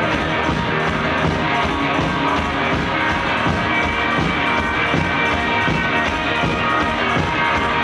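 Live garage rock band playing loud: electric guitars over a steady drum beat, heard from the crowd in a small club.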